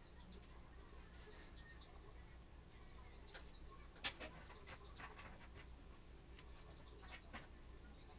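Near silence with faint high-pitched chirping in quick clusters every second or two, and a single sharp click about four seconds in.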